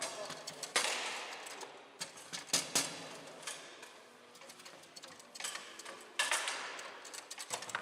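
Foosball being played on a Bonzini table: irregular sharp knocks as the ball is struck by the figures and hits the table's walls, with rods clacking. The loudest hits come about a second in, around two and a half seconds and just after six seconds, each ringing briefly.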